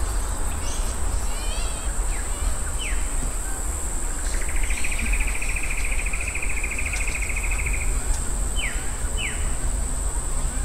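Outdoor bush ambience: insects droning steadily at a high pitch, with a few short falling bird-like chirps and a fast trill lasting several seconds in the middle, over a steady low rumble.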